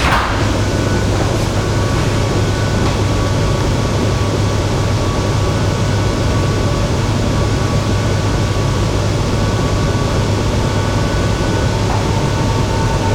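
Shenzhen Metro Line 14 train running, a steady rumble with a low hum and faint whining tones. A clearer steady whine comes in near the end.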